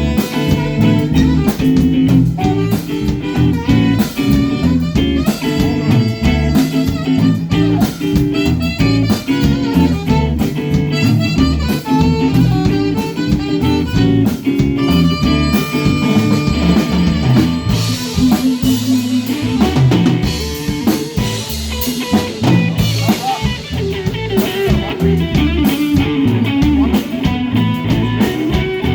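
Live band playing an instrumental cumbia passage: drum kit keeping a steady beat under guitar, with held melody notes from a lead instrument.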